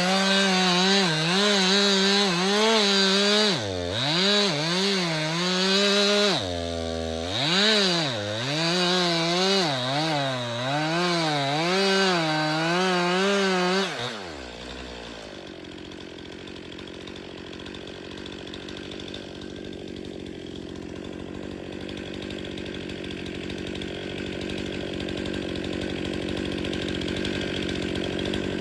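Two-stroke chainsaw running at high revs and cutting wood, its pitch wavering under load and dipping sharply twice. About halfway through the throttle is released, and the engine winds down to a quieter, steady idle.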